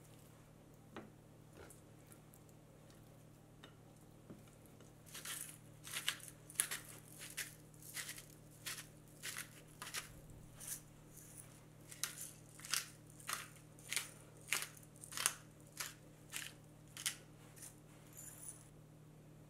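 Hand-twisted stainless steel pepper mill grinding black pepper, each twist a short gritty crunch; the twists come quickly at first, then settle to about one and a half a second, stopping near the end.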